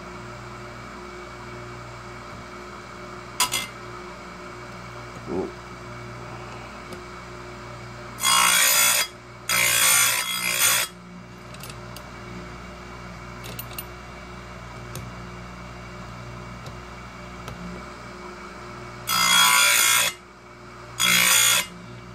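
Oregon 410-120 bench chain grinder running with a steady motor hum while its grinding wheel is brought down onto the cutters of 3/8-pitch chainsaw chain. Four short bursts of grinding come in two pairs, one pair about eight seconds in and one near the end, with a sharp click a few seconds in.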